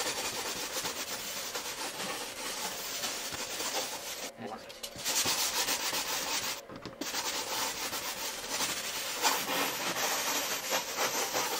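Wet sanding block rubbed along the cut edge of a glass pane to smooth off its sharp edge. The strokes run continuously, with two brief pauses about four and about seven seconds in.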